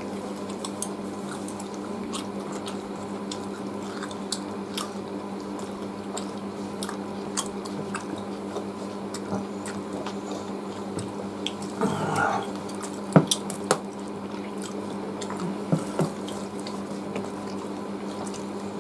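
Two people eating roast chicken and rice by hand off a banana leaf: scattered wet chewing and lip-smacking sounds and small clicks of fingers picking at the meat, over a steady low hum. A brief murmur of a voice comes about twelve seconds in, and a sharper click just after.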